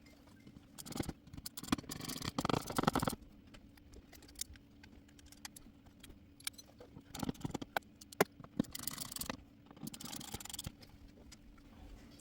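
Screws being driven into a smoke detector's plastic mounting plate, heard as bursts of scraping and rattling with sharp clicks, in two busy spells about a second in and again past the middle.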